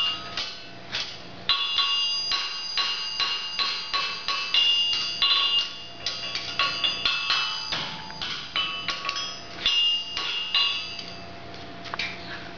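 Farrier's hammer striking a horseshoe on an anvil: a quick, uneven run of ringing blows, several a second, stopping near the end.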